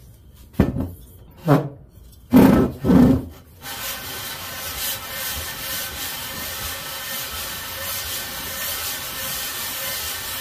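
Cast-iron Briggs & Stratton 5 hp cylinder block rubbed by hand on sandpaper, lapping its head-gasket deck flat. A few loud scraping strokes come in the first three seconds, then steady gritty rubbing from about four seconds in.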